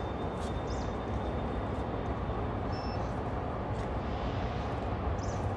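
A steady low rumble with no clear events in it.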